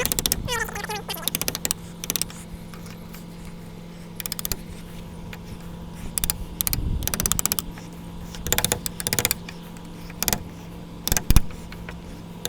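Repeated short bursts of rapid clicking and scraping from hand work on a wooden gate and its doorknob latch hardware, over a steady low hum.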